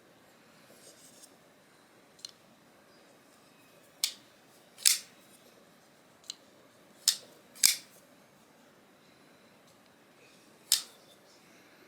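Zero Tolerance 0562CF titanium frame-lock flipper knife being flicked open and closed: about seven sharp metallic clicks, several in pairs under a second apart, as the blade snaps out and locks and is then shut. It is a check of the freshly reassembled pivot's action.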